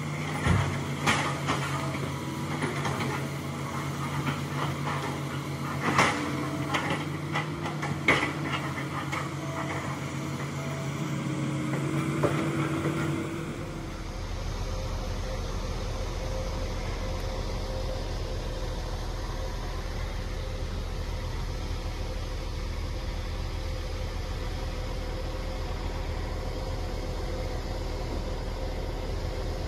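Hitachi excavator's diesel engine running under load, with several sharp knocks of logs and the bucket about 0.5, 1, 6 and 8 seconds in and a rising whine near 12 seconds. About 14 seconds in the sound changes abruptly to a steady low drone with no knocks.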